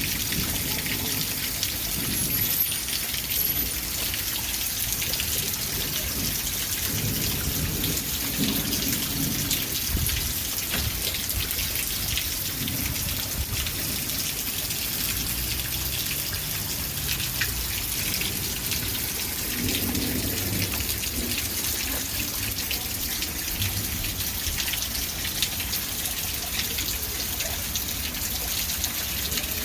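Steady rain falling, a dense even hiss of drops, with a few low rumbles now and then.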